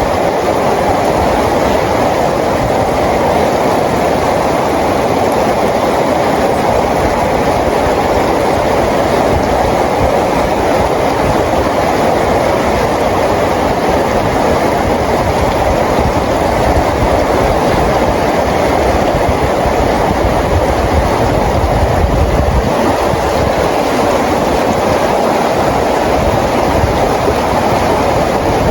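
Steady rain falling, an even hiss with a low rumble underneath that swells briefly about two-thirds of the way through.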